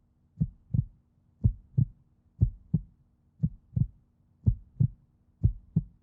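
Heartbeat: paired low thumps, lub-dub, repeating steadily about once a second.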